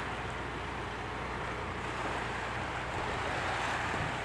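Steady seaside noise of wind and small waves washing onto a stony beach, with no distinct events.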